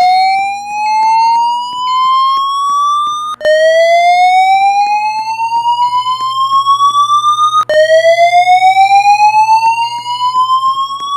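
Fire alarm voice-evacuation speakers sounding the slow whoop alert tone: a loud tone that rises steadily over about four seconds, drops back abruptly and repeats, three sweeps in all. It is the evacuation signal that alternates with the spoken evacuation message.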